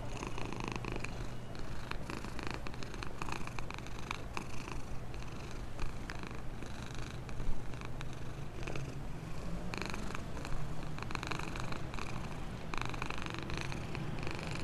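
A black cat purring steadily while it eats from a plastic bowl, with quick wet chewing and smacking clicks over the purr and one sharper click about halfway through.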